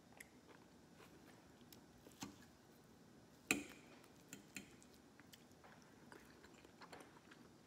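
Quiet eating: soft chewing, with a few light clicks of a metal fork against a plate as food is cut and picked up, the sharpest about halfway through.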